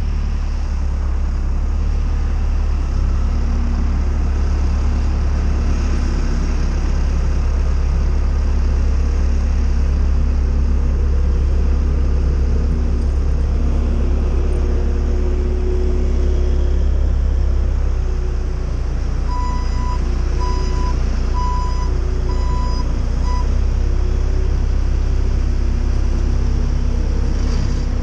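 Steady low engine rumble, with about five short high beeps in a row about twenty seconds in.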